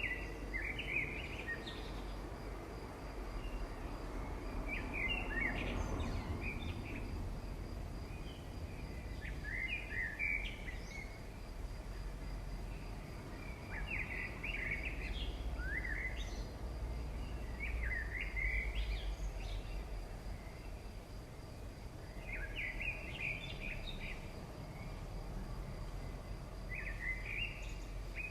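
A bird singing short chirping phrases every few seconds over a steady low rumble.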